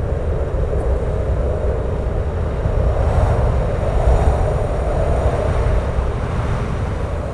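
Strong wind blowing steadily, a deep rumble under a rushing whoosh, swelling in a gust midway.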